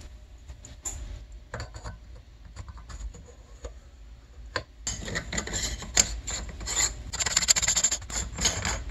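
A small brush scrubbing premixed fuel onto a carburetor slide, lubricating it. There are scattered light clicks of parts being handled at first, then a few seconds of steady scratchy rubbing from about five seconds in.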